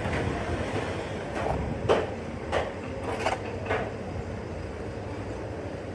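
A steel shovel scraping and tipping black moulding sand into a steel mould flask, five or so short scrapes about half a second apart, over a steady workshop rumble.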